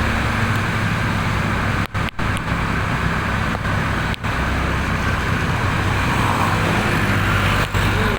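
Bus engine running amid steady traffic and road noise, with no horn playing; the sound cuts out briefly a few times, about two, four and near eight seconds in.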